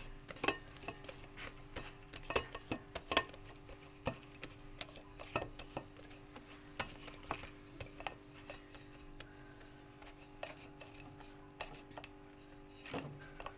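Hands pressing and patting soft pizza dough out across a greased metal pizza pan, giving irregular light taps and knocks against the pan, over a steady low hum.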